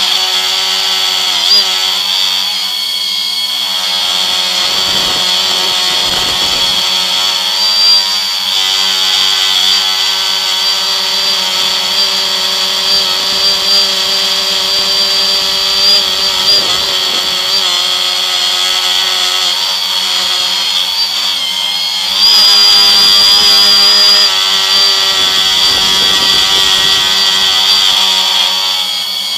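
Electric motors and propellers of a multirotor drone heard from a camera mounted on its frame: a steady, high-pitched whine made of several tones. About three-quarters of the way through it gets louder and slightly higher for a couple of seconds, then settles back.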